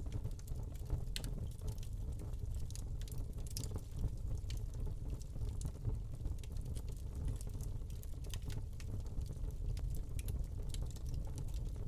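Wood fire burning in a fireplace: steady low rumble of the flames with irregular small crackles and pops from the burning log.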